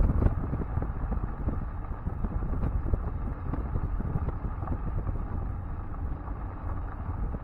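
A vehicle driving on a gravel road: tyres crunching over the gravel in a dense crackle over a heavy low road rumble.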